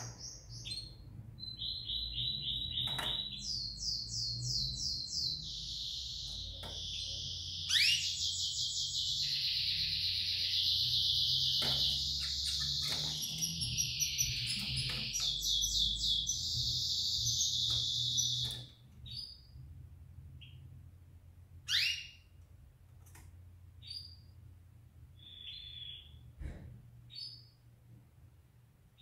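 Canary singing a long song of fast rolling trills and repeated high notes, breaking off after about 18 seconds into scattered short chirps and whistled sweeps. A low steady hum runs underneath.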